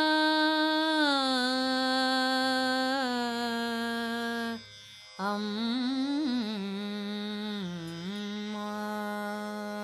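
A woman singing a Tamil devotional song in Carnatic style, drawing out long vowel notes. After a brief breath about halfway, she sings a phrase with ornamental slides up and down before settling into another long held note.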